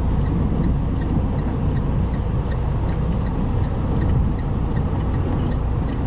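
Semi-truck's diesel engine running low and steady, heard from inside the cab as the rig is slowly reversed, with a faint regular ticking over it.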